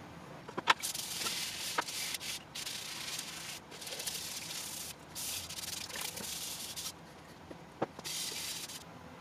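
A stiff plastic scrub brush scrubbing a wet steel knife blade in five bursts of brisk strokes, with a few sharp clicks of the brush or blade knocking; the mustard used for the blade's patina is being scrubbed off.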